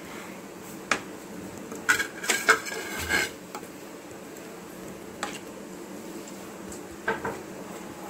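Steel ladle stirring thick gravy in a kadai, clinking and knocking against the pan. There is a cluster of ringing metal clinks about two to three seconds in, and single knocks before and after.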